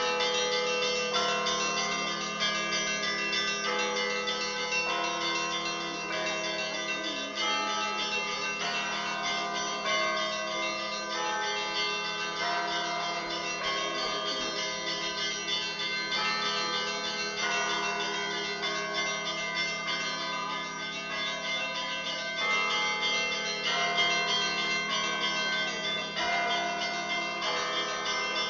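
Orthodox church bells ringing a continuous festive peal: several bells of different pitches struck again and again over a steady low ringing tone.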